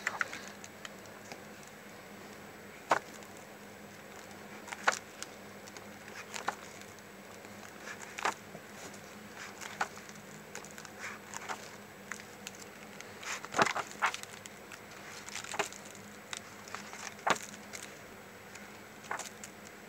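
Paper pages of a softcover workbook being turned by hand, a short rustle every second or two, about a dozen in all.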